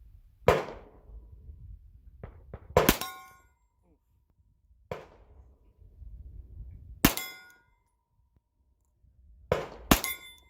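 Six 10mm Glock pistol shots about two seconds apart. Three of them are followed at once by the ringing clang of a hit steel plate.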